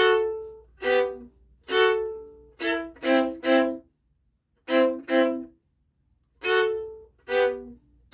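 A violin (fiddle) playing short, separate bowed notes, several of them double stops, each ringing out briefly before a rest, with a longer pause a little past the middle.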